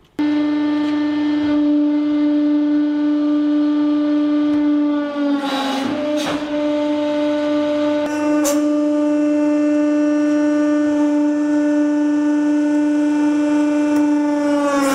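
Hydraulic press running with a loud, steady hum as the ram crushes a small round steel tube. The hum dips briefly in pitch about five seconds in and again near the end, with a few sharp clicks around six and eight seconds in.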